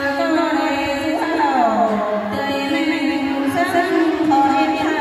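Women singing a Thái folk song (hát Thái) through microphones, in long held notes that slide up and down in pitch.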